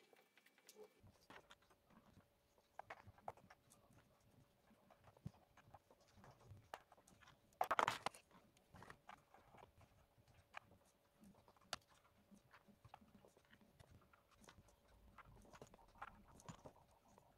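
Faint, scattered small clicks and taps of miniature dollhouse kitchen pieces being picked up, handled and set down, with one louder brief noise about eight seconds in.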